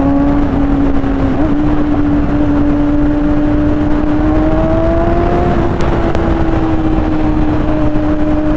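A 2010 Kawasaki ZX-6R's inline-four engine running at steady high revs at highway speed, under heavy wind rush. Its pitch climbs slowly, then eases off a little about two-thirds of the way through.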